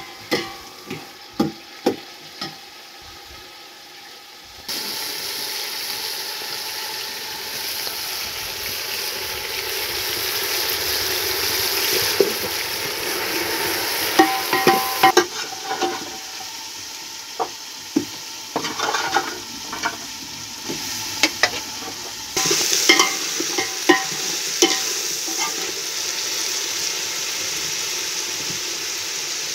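Food frying in hot oil in a steel pot over a wood fire: a steady sizzle that starts suddenly about five seconds in, with a metal ladle stirring and knocking against the pot.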